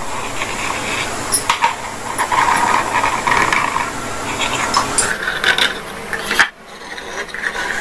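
Metal spoon scraping around steamed idlis in an aluminium idli mould plate to loosen them, with a few light clicks of spoon on metal. The scraping stops abruptly about six and a half seconds in.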